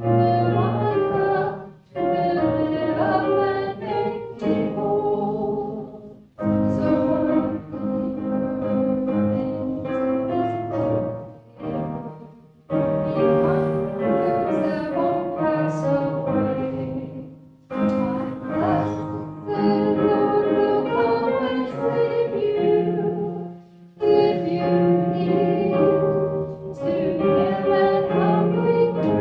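Church music: voices singing a sacred song with instrumental accompaniment, in phrases of about five seconds separated by short breaks.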